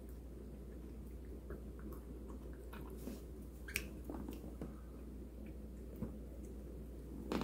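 Bengal cat chewing its food from a stainless steel bowl: soft, wet chewing and mouth sounds over a steady low hum, with a few sharp clicks, the loudest about four seconds in and just before the end.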